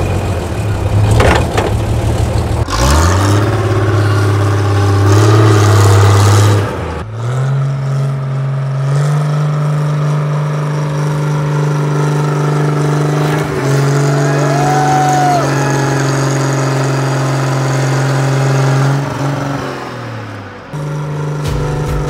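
Road roller's diesel engine running under load as the roller is driven back and forth, its speed rising a few seconds in, held higher for a long stretch, then falling off near the end.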